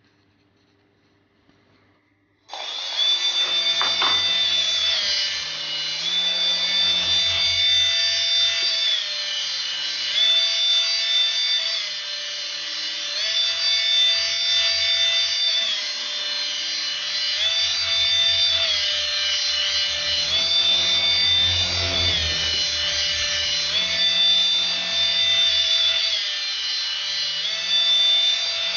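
Small electric motor and rotor of a toy Minion RC flyer starting up suddenly about two and a half seconds in, then whirring with a high-pitched whine. The pitch steps up and down every two to three seconds as the motor speeds up and slows.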